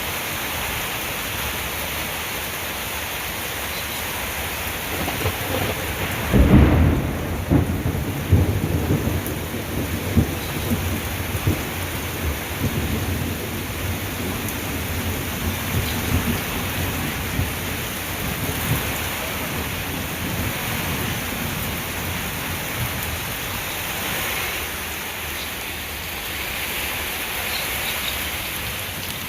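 Heavy rain pouring steadily, with a loud thunderclap about six seconds in that rolls on as low rumbling for roughly ten seconds before fading back under the rain.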